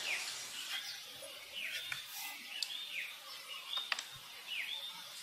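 Repeated high chirping calls, each a quick downward sweep, about one a second, over steady outdoor background noise, with a few faint sharp clicks.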